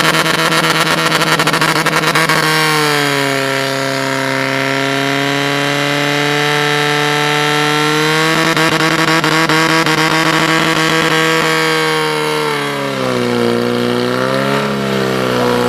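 Portable fire pump's engine running hard at high revs while it pumps water out through the attack hoses to the jets. The pitch holds mostly steady, lifts a little about halfway through, dips briefly near the end and comes back.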